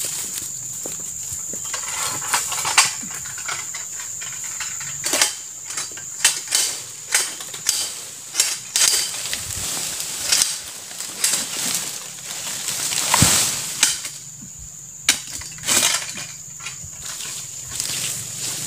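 Pole-mounted palm-harvesting sickle (egrek) working among oil palm fronds: irregular sharp cracks, knocks and rustling, thickest in the middle of the stretch, over a steady high-pitched whine.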